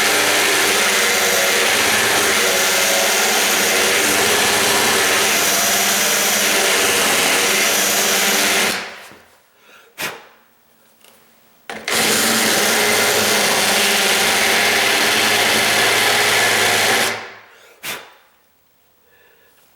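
Power drill running with a worn bit, reaming out the metal strike plate's latch opening and the wood behind it. It runs steadily for about nine seconds, stops, then runs again for about five seconds, with brief clicks in the pauses.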